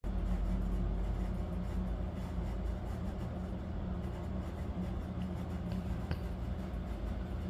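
Steady low hum, with a few faint clicks a little past halfway.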